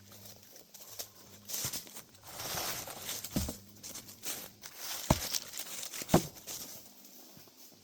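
Rustling, crunching footsteps with three sharp knocks in the second half; no chainsaw running.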